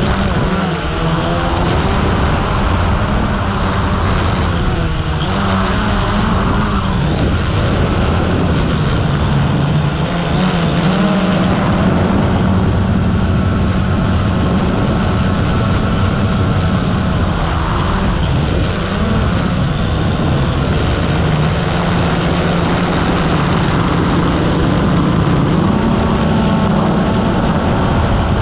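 A drone's motors and propellers buzzing in flight, with a steady low hum that steps up and down in pitch several times as the throttle changes, over a wash of rushing noise.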